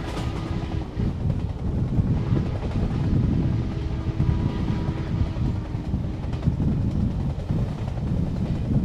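Wind rushing and buffeting over the microphone, over the steady rumble of a passenger train running at speed, heard from a coach window.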